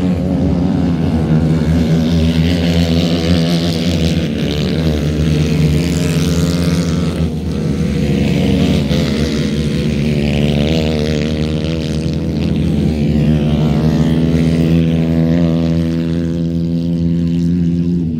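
Several grass karts with Honda CBR125 single-cylinder four-stroke engines racing round the circuit, their engine notes overlapping and rising and falling as they accelerate and ease off.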